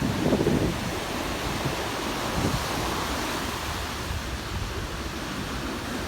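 Ocean surf breaking and washing up a sandy beach in a steady rush, with wind buffeting the microphone in low gusts, strongest about half a second in.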